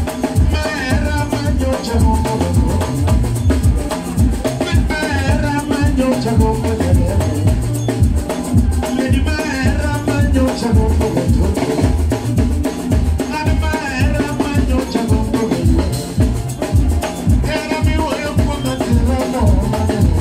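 Dance music with a steady, driving drum beat and short sung phrases that come back about every four seconds.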